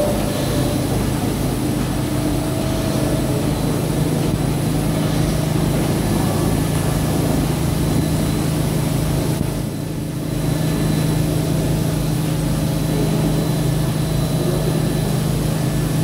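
Automatic carpet washing machine running: a steady low motor hum with a hiss over it, briefly dipping about ten seconds in.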